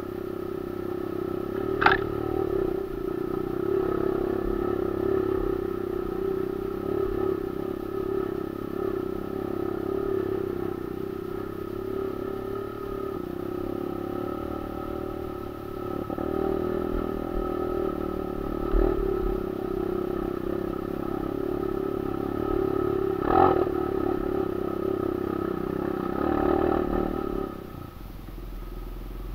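Kawasaki KLX150 trail bike's single-cylinder four-stroke engine running steadily while riding a dirt trail, with a few sharp knocks from the bike over bumps. The engine note falls away near the end.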